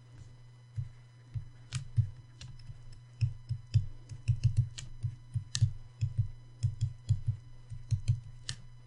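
A pen stylus knocking and tapping on a drawing tablet while handwriting. It is an irregular run of light, dull knocks, some in quick clusters, with an occasional sharper click.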